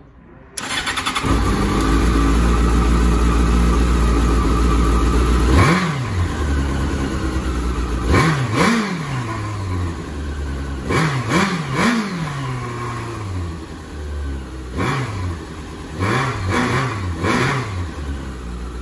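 Yamaha FZ6 Fazer's 600 cc inline-four starting: the starter cranks briefly about half a second in and the engine catches and idles steadily. From about six seconds in it is blipped about ten times, each rev rising quickly and dropping back to idle, singly and in quick pairs and threes.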